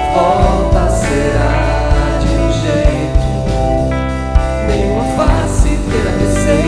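Recorded band music with drums, bass and a wavering lead melody line over sustained chords, from a 2005 studio album.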